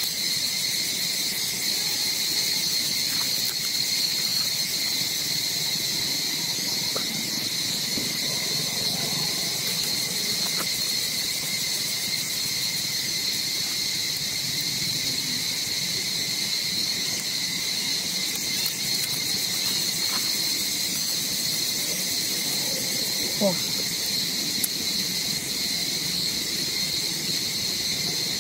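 Steady chorus of insects, a continuous high buzzing drone that holds unchanged throughout, with one brief short sound about 23 seconds in.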